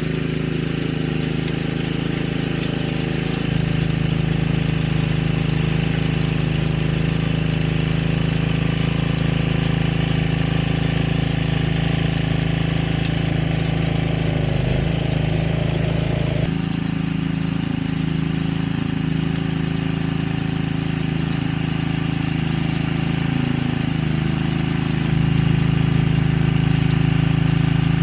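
Grillo walk-behind tractor's 9 hp petrol engine running steadily as its rotary tiller works the soil, with the engine note changing abruptly about two-thirds of the way through and growing louder near the end.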